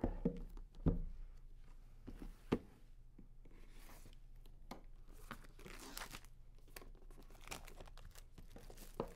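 Clear plastic shrink-wrap being slit and peeled off a tablet box, faint crinkling and tearing with a few short sharp clicks.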